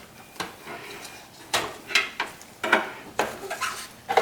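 A series of sharp plastic clicks and knocks, about six in all and spaced irregularly, as power cable connectors are handled and worked loose inside a desktop PC case.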